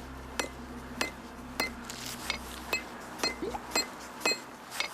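A regular series of light, ringing metallic clinks, about two a second.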